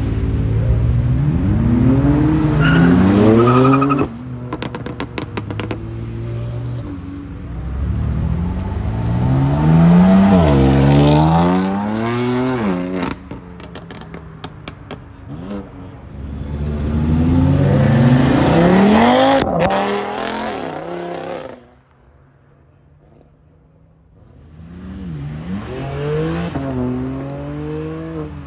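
A succession of performance cars, among them BMW M2s and an M3, accelerating hard away one after another. Each engine's pitch climbs and then drops at each upshift. Between pulls there are bursts of sharp exhaust crackles and pops, and a short lull comes about three-quarters of the way through.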